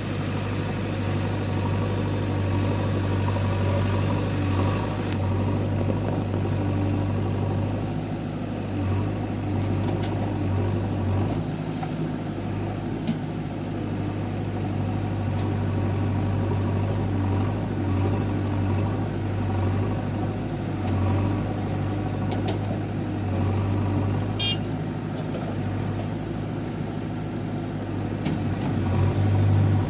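Heavy diesel machinery engine running steadily with a deep, even hum, swelling a little near the end. A short high chirp sounds briefly about 24 seconds in.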